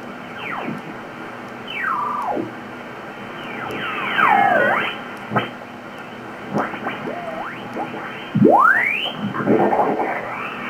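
ICOM IC-7700 HF transceiver's receiver audio as the main tuning dial is turned across the 40-metre amateur band. Signals sweep through as gliding tones that fall and rise in pitch over a steady hiss, the strongest a rising sweep near the end.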